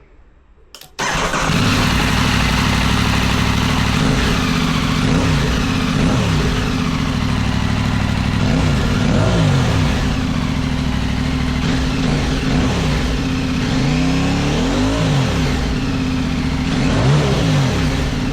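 Aprilia Tuareg 660's parallel-twin engine running through a titanium Spark Dakar slip-on exhaust with a shortened, modified DB killer baffle. It comes in suddenly about a second in, runs steadily, and is revved in several short blips, mostly in the second half.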